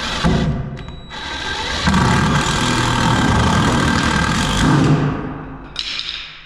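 Cordless power drill running under load in two bursts, a short one and then one of about three seconds, boring or driving screws into 2x4 lumber, followed by a short knock near the end.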